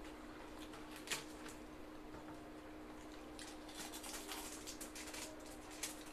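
Eating sounds of several people eating with their hands: scattered short wet smacks and clicks of chewing and fingers picking at food. The loudest is about a second in, with a thicker run in the middle, over a faint steady hum.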